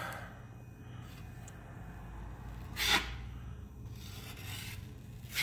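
Small drywall knife scraping and spreading joint compound over a wall patch, with two short, louder scrapes of the blade, one about three seconds in and one at the end.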